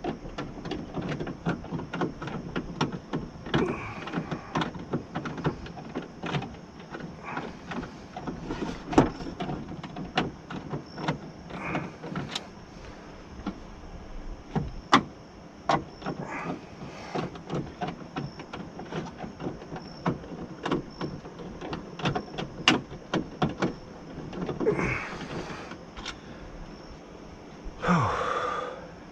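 Metal clicks, taps and knocks as a window regulator track is shifted into place inside a Honda Civic's door, with two scraping slides of about a second each near the end.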